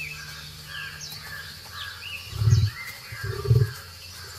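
Forest birds chirping over and over with short falling calls, over a steady low hum that stops about a second and a half in. Two short, deep thuds sound near the middle and about a second later.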